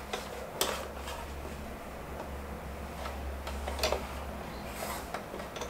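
Light, irregular clicks and handling noises at a sewing machine as mesh fabric is lined up under the presser foot, over a low steady hum.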